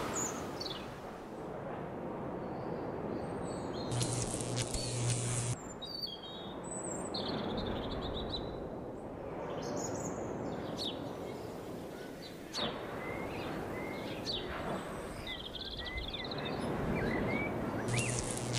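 Birds chirping over a steady outdoor background noise. About four seconds in there is a short buzzing hiss lasting about a second and a half, and another starts near the end.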